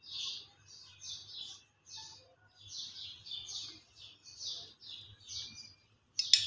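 A small bird chirping over and over in quick high chirps, two or three a second. Near the end there is one sharp clink of a metal spoon against a glass dessert bowl.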